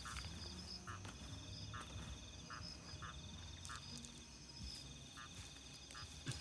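Night chorus of frogs: short calls repeating about once a second, over a higher pulsing trill that comes and goes in bouts of a second or two.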